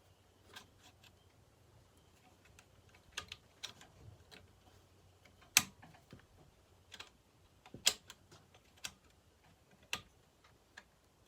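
Scattered small clicks and light knocks of hand work on a Homelite XL-12 chainsaw's throttle linkage, as the linkage is bent and fitted; two sharper knocks stand out about halfway through and again a couple of seconds later.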